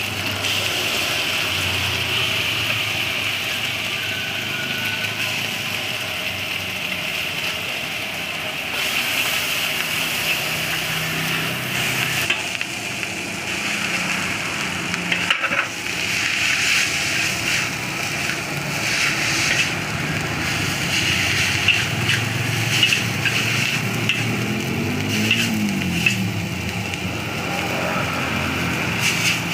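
Mie goreng stir-frying in a wok: steady sizzling, with a metal spatula scraping and clinking against the pan. The clinks come more often in the second half, as vegetables and noodles are tossed.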